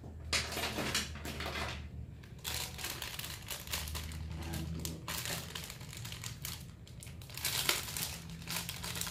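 Plastic pen packaging crinkling and crackling as it is handled and opened, in several stretches with short pauses between.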